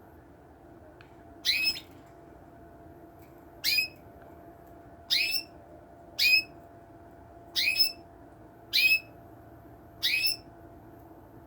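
Llarguet Español canary calling: a short, sharp call repeated seven times, about one to two seconds apart, each a quick sliding note.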